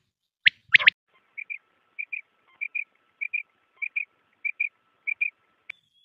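Quail calling: a loud, sharp three-note call about half a second in, then soft quick double notes repeated seven times, a little over half a second apart.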